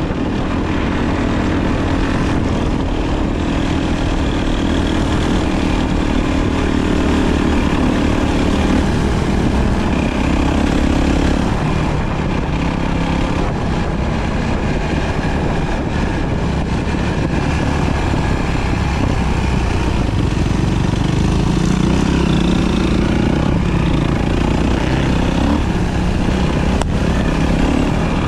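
Enduro dirt bike engine running while riding, its pitch rising and falling with the throttle over a steady rush of noise.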